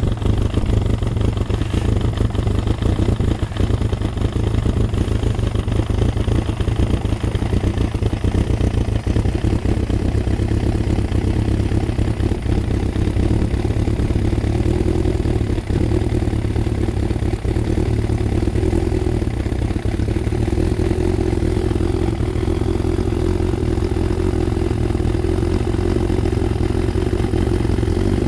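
Freshly rebuilt Yamaha Thunderace inline-four motorcycle engine running steadily at a low idle on its first start-up.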